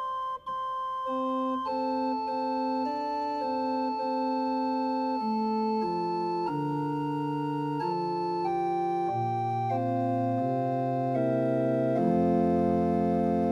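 Organ playing a slow chordal passage: held chords that change every half second to a second under a melody line. A full chord with a deep bass comes in near the end.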